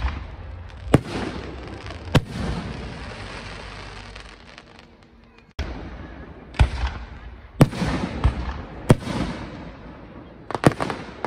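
Aerial firework shells bursting in a display: about nine sharp booms, each followed by a long rolling echo, with a lull of a few seconds in the middle and a quick double burst near the end.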